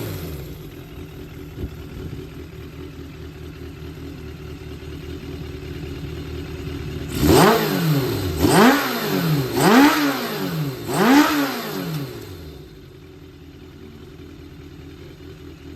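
Suzuki GSX400 Impulse inline-four engine idling, then blipped four times in quick succession, each rev rising and falling back, before settling to a quieter idle. A high-compression engine that the seller lists as running without abnormal noise.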